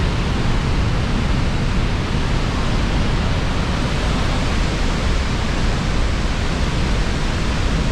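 Niagara's Horseshoe Falls heard up close from its base: a loud, steady, unbroken rush of falling water, heaviest in the low end.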